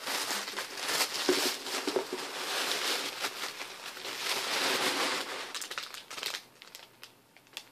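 Tissue paper rustling and crinkling as it is pulled open and shaken out to free the item wrapped inside, dying down to a few small crinkles after about six seconds.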